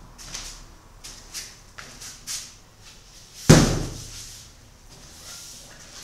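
A large stretched canvas being handled on a plastic-sheeted floor: light shuffling and rustling, then one loud, hollow thud about three and a half seconds in as the canvas's edge is set down on the floor.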